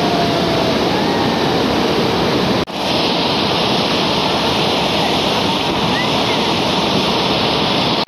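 Waterfall rushing over rock slabs: a loud, steady rush of white water. There is a sudden brief drop in level about two and a half seconds in, after which the rushing goes on.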